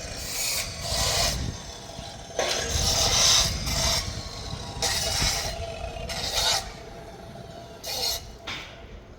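Harsh scraping or grinding on steel in repeated short bursts, each about half a second to a second long, with the last one near the end.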